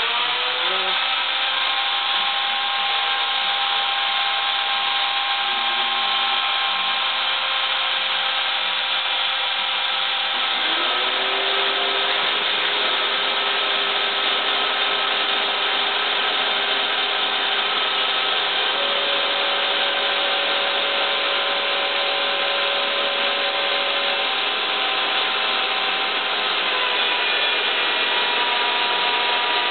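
Homebuilt CNC router running steadily, its router motor giving a continuous high, noisy whine. Over it sit steady tones that change pitch every few seconds, one gliding up about ten seconds in, as the Xylotex stepper motors drive the axes.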